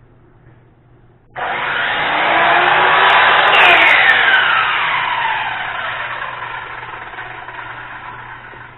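Radial arm saw switched on, starting suddenly about a second and a half in and running up to full speed, then switched off and winding down slowly with a falling whine.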